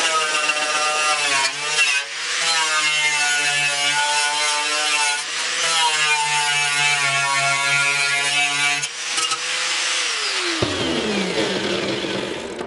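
Angle grinder with a wire cup brush scrubbing paint and rust off a steel truck grille: a steady motor whine over a loud scraping hiss. About ten seconds in the grinder is switched off and its whine falls steeply as it spins down.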